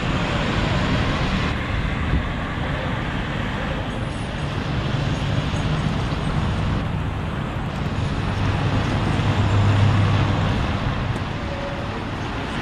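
Steady traffic noise from vehicles on wet, flooded roads, with a low engine hum that swells about ten seconds in and then fades.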